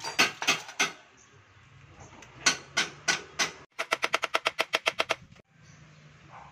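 Hammer blows on a steel punch set against the steering-stem nut of a Honda XR150 while its steering-head bearing is being replaced: sharp, ringing metal-on-metal strikes. Two sets of four separate blows come first, then a fast even run of about a dozen taps at roughly nine a second that stops abruptly.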